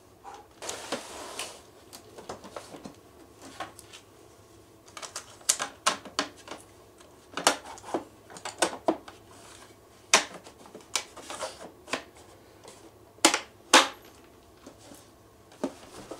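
Irregular sharp plastic clicks and knocks from handling an APC Back-UPS Pro battery backup unit while refitting its battery side cover, with a brief rustle about a second in.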